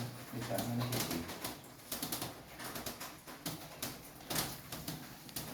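A strange sound coming up from inside a bore well: irregular clicks and knocks, with a low hum in the first second.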